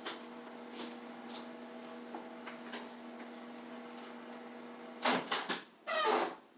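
Steady low electrical hum, which stops about five seconds in when two short, loud rustling knocks follow each other.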